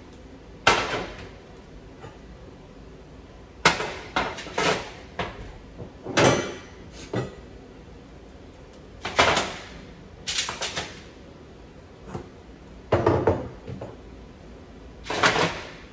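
Metal burner grates of a gas range clattering as they are set down and fitted into place. Sharp knocks and scrapes come in irregular clusters with pauses of a second or two between them.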